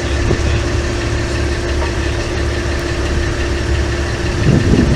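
Party boat's engine idling: a steady low rumble with a constant hum over it.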